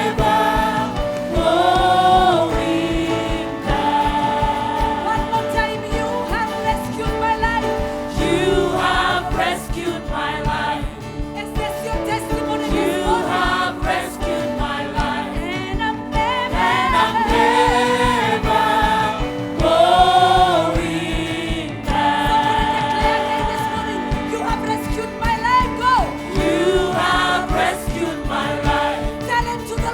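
Congregational gospel worship singing with a band: voices singing together over steady instrumental accompaniment.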